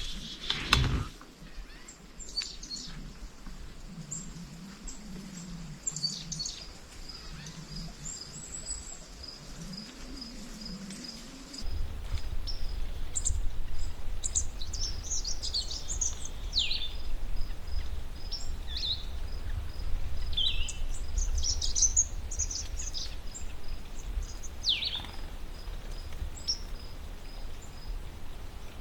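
Songbirds chirping and calling in a woodland, with several calls sliding down in pitch and a faint, evenly repeated high note. About twelve seconds in, a steady low rumble comes in under the birds.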